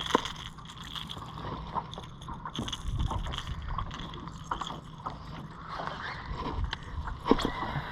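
Small fishing boat sitting on the water, with wind rumbling on the microphone and a handful of sharp knocks, the loudest just after the start and about seven seconds in.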